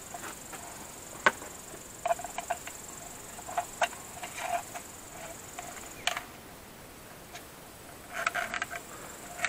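Scattered clicks and light knocks of plastic pool-filter pump parts being handled and fitted back together, the sharpest about a second in, near four seconds and about six seconds in, with a small cluster of rattling clicks near the end.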